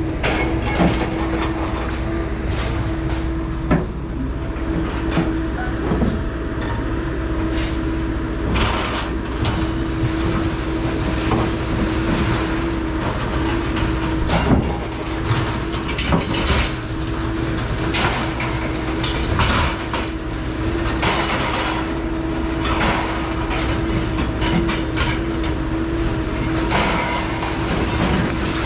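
Steady road and engine noise heard from inside a moving car, with a constant low hum and frequent small clicks and rattles.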